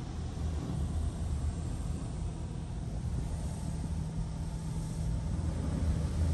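Automatic car wash spraying water over the car, heard from inside the cabin: a steady hiss of spray over a low rumble, growing a little louder near the end.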